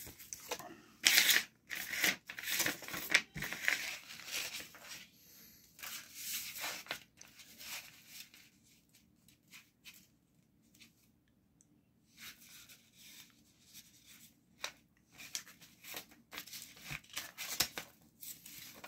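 Paper ad inserts and a plastic VHS clamshell case being handled: irregular rustling and scraping, with a quiet gap about halfway through.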